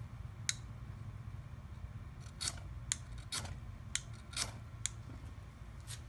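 Ferrocerium rod scraped with its metal striker, about eight sharp rasping strikes at irregular intervals, throwing sparks to light a wad of dryer lint.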